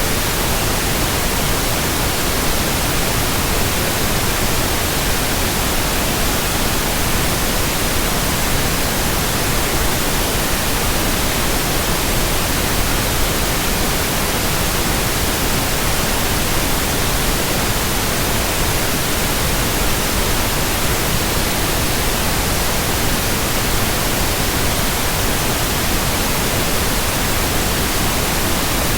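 Steady white-noise hiss, even from low to high pitch, with no rhythm, tones or changes.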